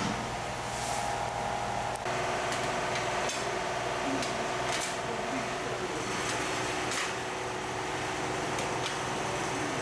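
Steady mechanical hum, with a few light clicks and taps as steel punch dies are lifted from and set into their die holder.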